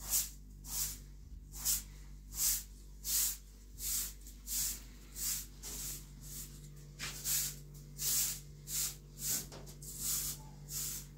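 Short bundled-straw hand broom sweeping a floor in steady, even strokes, a dry swish at about three strokes every two seconds.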